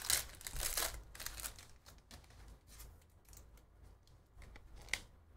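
Trading-card packs and cards being handled: wrapper crinkling and card rustling, loudest in the first second and a half, then fainter shuffling with a sharp click near the end.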